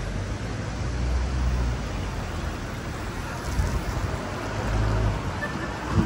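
Steady rush of a fast-flowing river, with uneven low rumbles of wind buffeting the microphone.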